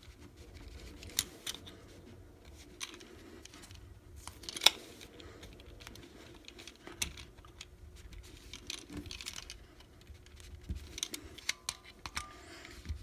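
Scattered small clicks and scrapes of a screwdriver and pliers prying at a Glock magazine's floor plate, the loudest click a little under five seconds in.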